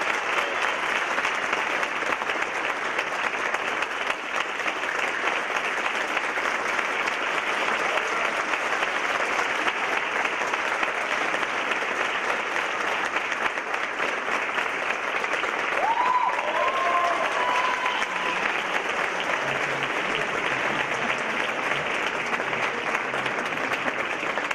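Large audience applauding steadily, a dense clapping that does not let up.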